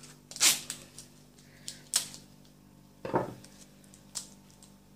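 A small wrapped sweet packet being cut and picked open with a knife: several sharp crackles and clicks about a second apart, with a fuller crackle about three seconds in.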